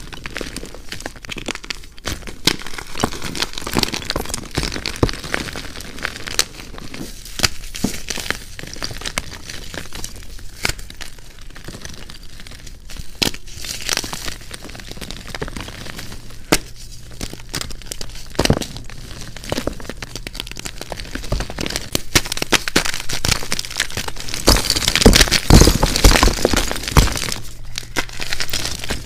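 Chunks of gym chalk crumbled and crushed by hand: a continuous dry crunching and crackling made of many small snaps, growing louder and denser in the last few seconds as both hands press down on a block.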